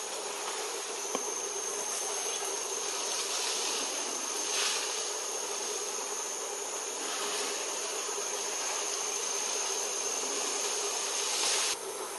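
Steady high-pitched insect drone in forest ambience, over a light hiss; it breaks off suddenly shortly before the end.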